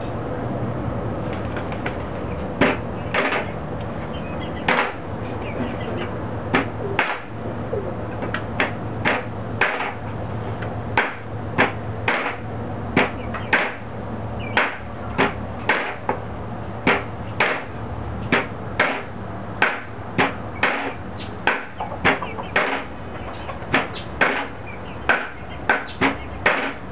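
Cleaver chopping a squirrel carcass into pieces on a round wooden chopping block: repeated sharp chops, about one to two a second, starting a few seconds in, over a steady low hum.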